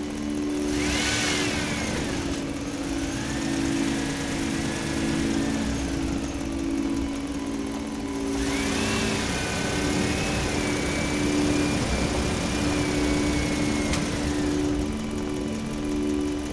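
Excavator engine running steadily. A whine rises and falls twice as the machine works under load: briefly near the start, then for about six seconds from the middle.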